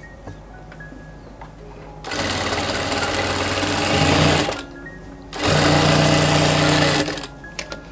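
Daisen industrial sewing machine stitching a seam through gathered cloth, running in two bursts: about two and a half seconds starting about two seconds in, then after a short pause about a second and a half more before it stops.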